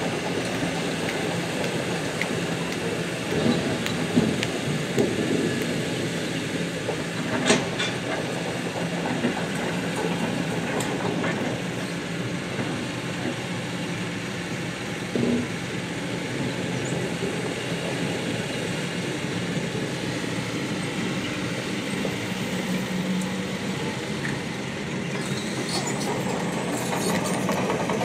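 Diesel engine of a Kobelco hydraulic excavator running over the steady rush of a shallow river, with a few sharp knocks as stones drop into a dump truck's steel bed.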